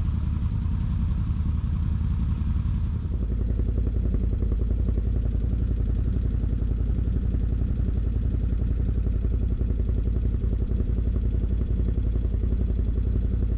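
Can-Am Outlander XMR 1000 ATV's V-twin engine running hard on a high-speed run. The sound turns deeper and duller about three seconds in.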